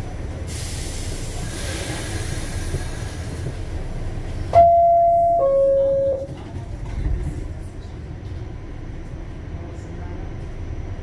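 Subway car's steady low rumble, with a hiss in the first few seconds. About four and a half seconds in, the car's loud two-note chime sounds, a higher note and then a lower one, each under a second long.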